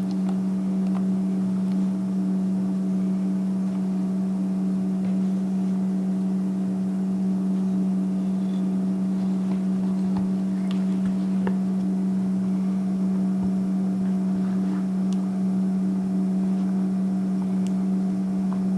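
Steady electrical hum, like mains buzz, with a few faint small clicks and ticks of handling.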